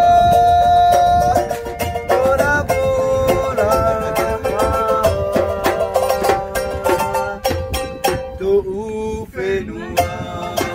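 A man singing while strumming a ukulele, with the strums coming fast and even under long, held sung notes.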